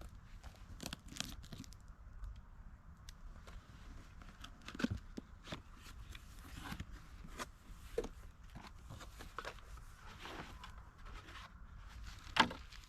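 Crinkling and rustling of packaging being handled, with scattered clicks and knocks and one sharper knock near the end. No engine is running yet.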